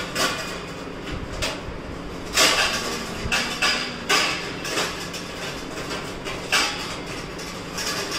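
Steel plates and utensils clattering and knocking irregularly as someone rummages through a lower kitchen cabinet for a plate.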